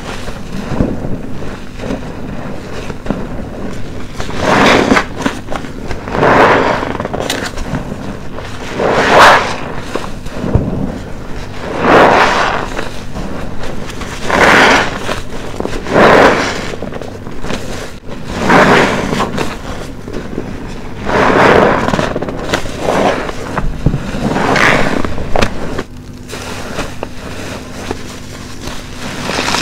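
A sponge soaked in soapy foam, squeezed again and again by hand, about one squeeze every two to three seconds.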